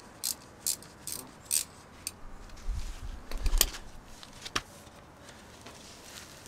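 Socket ratchet on a 10 mm brake caliper bolt clicking in short bursts about twice a second as it is swung back and forth to undo the bolt. About two seconds in this gives way to irregular metal clinks and a few low knocks, the loudest in the middle, as the loosened bolt is turned out by hand.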